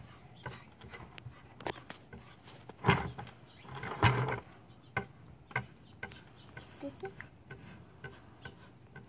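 Foam sponge brush dabbing and rubbing acrylic paint onto a plywood board: a run of light scrapes and small taps, with two louder thumps about three and four seconds in.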